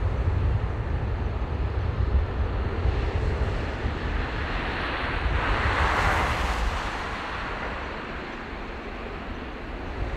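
Jet engines of a departing cargo airliner at takeoff power, over a low rumble of wind on the microphone. The engine noise swells about halfway through, then fades away.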